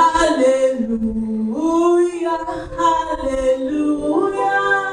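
Church choir singing a slow, held "Hallelujah" in a gospel worship song, each syllable drawn out over about a second.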